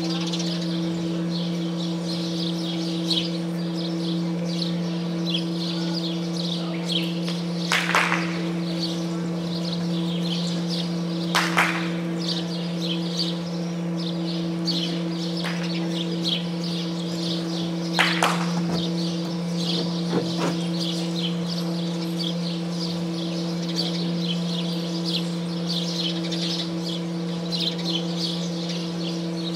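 Small birds chirping over and over, a constant high twittering, over a steady low electrical hum. A few short sharp noises break in, near the end of the first third and again in the middle.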